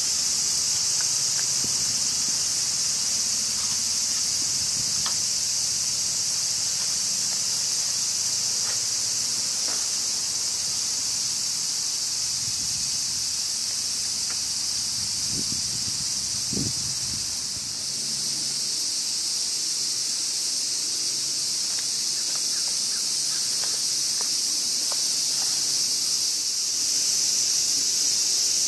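A steady, high-pitched chorus of cicadas, with a couple of faint low knocks about halfway through.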